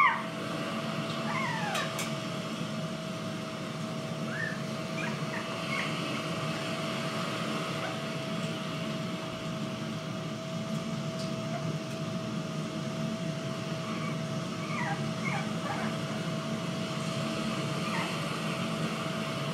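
Jack Russell Terrier puppies whimpering: a few short, faint whines about a second and a half in, again near four and a half seconds, and a little cluster around fifteen seconds. A steady hum and hiss run underneath.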